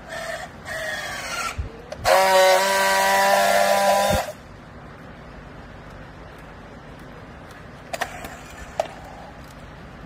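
Battery-powered handheld strapping tool working a plastic strap around a bale: two short motor whines as it tensions the strap, then a loud steady buzz for about two seconds as it friction-welds the joint, stopping abruptly. Two light clicks follow later.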